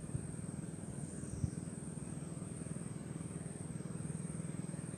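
A steady low engine drone with an even, fast pulse, and a faint thin high whine above it.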